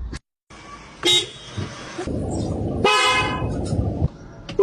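Two short horn toots about two seconds apart, with a rough noise between and after them.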